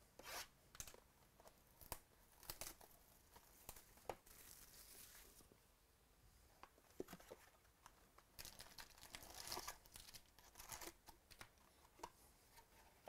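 Quiet tearing and crinkling of the plastic wrap being stripped off a sealed box of trading cards, with scattered clicks and taps of cardboard as the box is handled and opened.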